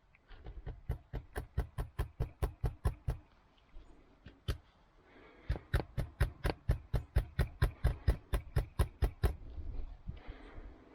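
Hammer striking nails into wood in two runs of quick, even blows, about four a second, with a single blow in between.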